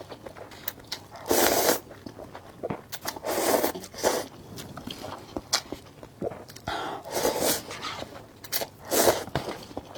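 Eating spicy instant noodles: several loud slurps of a second or less, with small chewing and mouth clicks in between.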